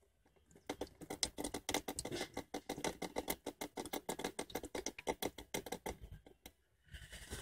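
Engine coolant dripping and trickling from the pried-open heater-core pipe joint onto a plastic catch sheet, a fast irregular patter that stops shortly before a brief rustle near the end.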